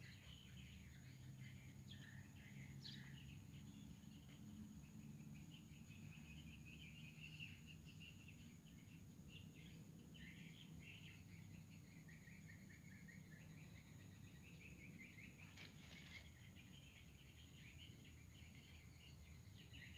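Quiet outdoor ambience: faint, continuous chirping of small wild animals over a soft low rumble.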